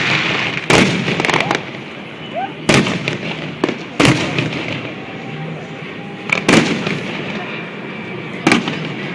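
Aerial fireworks shells bursting in a show: a string of sharp booms every one to two seconds, with crackling and rumbling in between.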